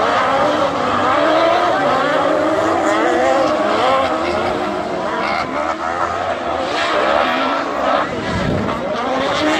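Autocross cars' engines revving hard on a dirt track, several engines rising and falling in pitch as the drivers accelerate, lift and shift.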